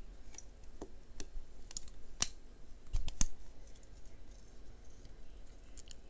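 Swiss+Tech ST021033A multi-tool's spring-loaded pliers and folding steel handles being worked open and shut, giving a series of sharp metallic clicks and snaps at irregular intervals, the loudest a little after two seconds and just after three seconds.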